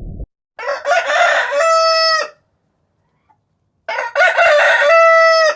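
Rooster crowing twice, each crow about a second and a half long and ending on a long held note.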